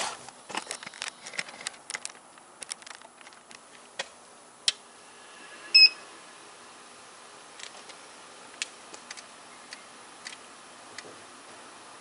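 Clicks and knocks of the camera being handled and set in place, then a single short electronic beep about six seconds in. A faint steady hum and a few scattered ticks follow.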